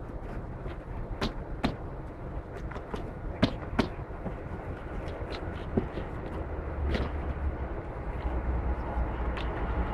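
Cardboard boxes of mangoes being handled and stacked onto pallets: a handful of sharp knocks as boxes are set down, over a steady low outdoor rumble that grows louder about two-thirds of the way through.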